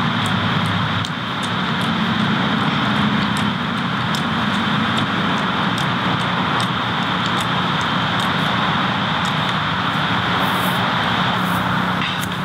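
A steady, engine-like drone with a high, even hiss above it, and faint ticks about twice a second.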